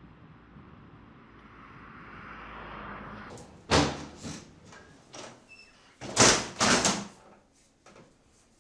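Wind hiss over open water, then tall glass French windows being worked by hand: the latch and handle clack twice, and a couple of seconds later come two louder bangs and a rattle as the casements swing against the frame.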